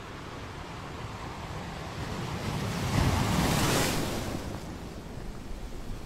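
Ocean wave breaking on the shore: the surf noise swells to a peak about three seconds in and then washes away. Wind rumbles on the microphone underneath.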